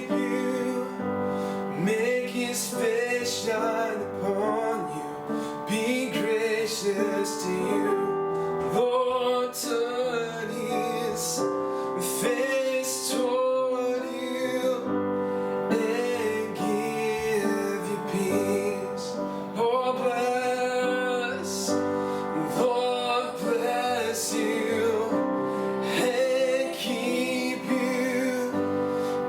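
Worship music: piano with a woman singing sustained, wavering notes over held chords.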